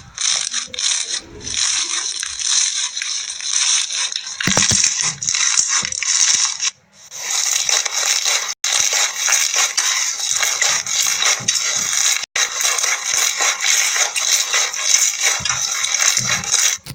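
Slime being squeezed and poked, giving a dense crackling and crunching made of many small pops, over background music. The sound cuts out briefly a few times, as at edits.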